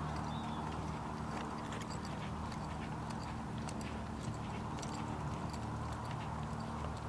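A horse's hooves striking the ground in an irregular patter of light clicks, over a steady low hum.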